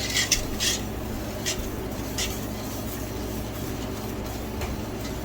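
Spoon stirring sugar into liquid in a cooking pot, scraping the undissolved sugar off the bottom: a few quick scraping strokes in the first second, then occasional fainter ones, over a steady low hum.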